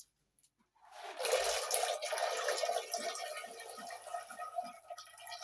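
Boiled beans being poured from a basin into a clay cooking pot over a wood fire: a wet rushing hiss that starts about a second in and slowly dies away, with a few soft low knocks.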